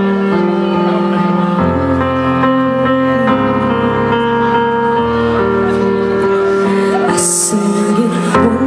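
Slow ballad backing track intro: sustained keyboard chords that change every second or two, with a short hiss about seven seconds in.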